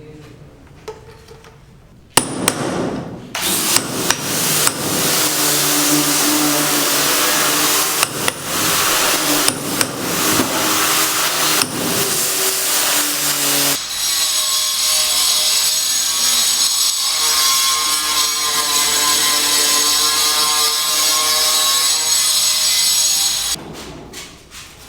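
A power tool running loud and steady, starting about two seconds in and stopping shortly before the end. About halfway through, its sound turns higher and thinner.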